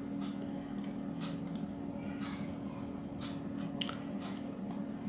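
Quiet room tone: a steady low hum with a scattering of small, irregular clicks and ticks.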